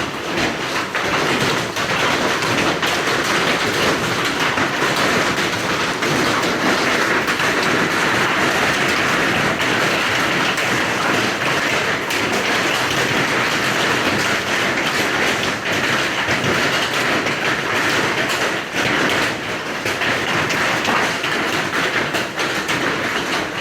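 A hailstorm: hailstones falling heavily and striking surfaces in a dense, steady clatter of countless small impacts.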